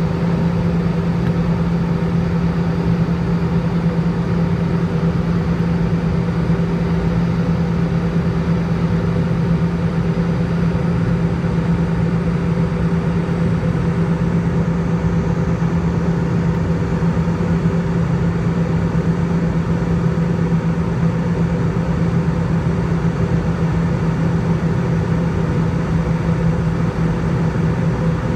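Jet airliner cabin noise in flight: the wing-mounted turbofan engines and airflow give a steady drone with a constant low hum, heard from a window seat over the wing.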